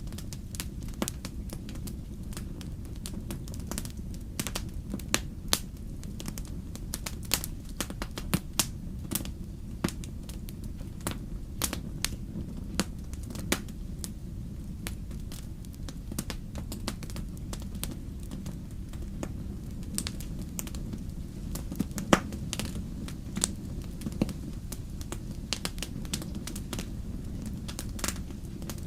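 Wood fire crackling in a fireplace: scattered sharp pops and snaps, some louder than others, over a steady low rumble of the flames.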